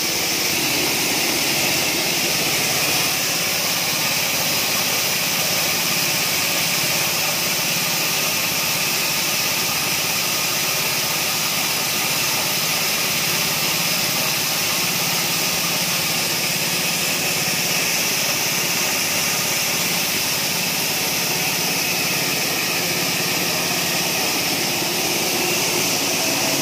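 Small petrol engine running steadily, driving a mini coffee huller, with a constant hum under a strong hiss.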